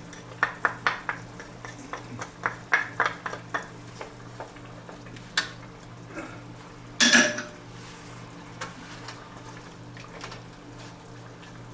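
Kitchen utensils knocking on cookware and board: a quick run of sharp knocks, about three a second, for the first few seconds, then scattered knocks and one louder clatter about seven seconds in, over a steady low hum.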